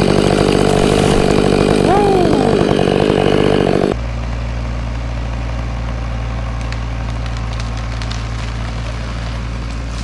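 Stihl 500i two-stroke chainsaw running flat out, cutting the back cut through a dead tree trunk. About four seconds in the sound switches abruptly to a steadier, lower engine drone.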